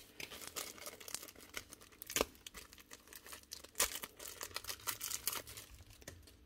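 Small clear plastic parts bag crinkling in the hands as a new nibbler punch is taken out of it, with irregular crackles, the sharpest about two and about four seconds in.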